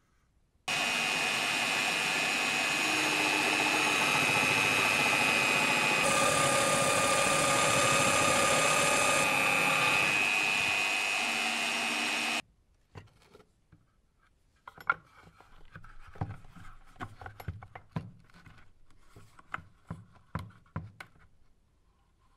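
Drill press boring into plywood with a spade bit: a loud, steady motor sound with a high whine that starts just under a second in and cuts off suddenly about twelve seconds in. After it come light, scattered clicks and knocks.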